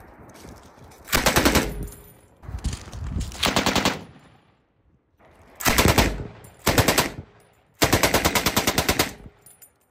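A 1941 Johnson light machine gun in .30-06 firing several short bursts of automatic fire, each a quick run of evenly spaced shots. The longest burst comes near the end.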